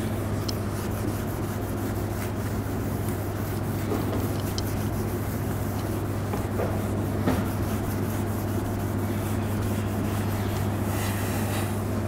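Whiteboard duster rubbing across a whiteboard as it is wiped clean, over a steady low hum.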